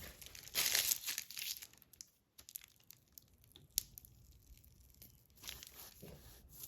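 Crinkling of paper or plastic packaging being handled, loudest in a burst about a second in and again near the end, with small scattered clicks between.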